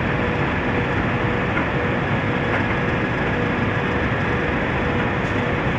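Steady industrial machinery noise at a cement plant feeder, as loose material pours from a hopper onto a conveyor belt, with a constant hum running under it.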